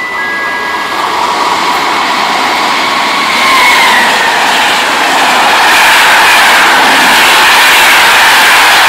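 A Trenitalia Freccia passenger train passing through the station at speed: a rush of wheel and air noise that builds over the first few seconds and then holds loud, with a faint whine that dips slightly in pitch about three and a half seconds in.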